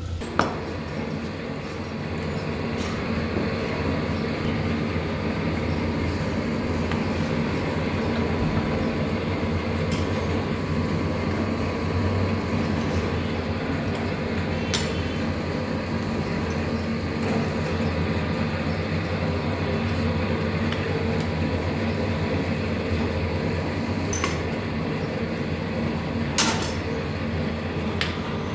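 A steady machine hum runs throughout, with a few sharp metallic clicks and taps from small hand tools working on a brake cylinder held in a steel vise.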